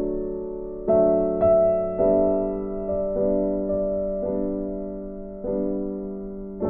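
Background music: gentle piano chords, each struck and left to fade, a new chord about once a second.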